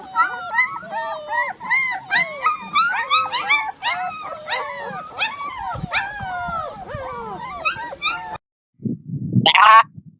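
Puppies whimpering and yipping in a rapid run of overlapping high, gliding squeals. This cuts off suddenly about eight seconds in, followed by a short low sound and a brief, loud rising call near the end.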